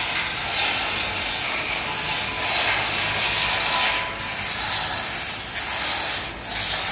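Manual chain hoist (chain block) being hauled by hand to lift a steel column, its chain running through the block with a steady rasping rattle.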